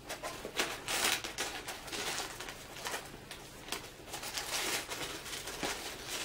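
Tissue paper being unfolded and pulled back from around a gift-boxed keychain, rustling and crinkling in a run of irregular short crackles.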